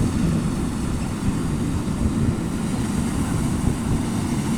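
Rice combine harvester running steadily, a continuous low engine drone.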